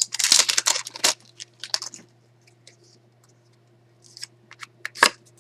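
Foil booster pack wrapper being torn open and crinkled for about the first second, then scattered faint ticks and one sharper click near the end.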